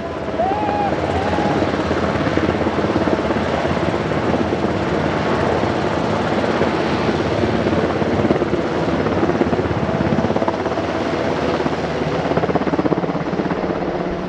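UH-60JA Black Hawk helicopter flying low and close past, its rotor and turbine engines making a steady, dense noise.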